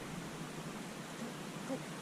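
Faint steady outdoor background hiss, with a faint voice briefly heard near the end.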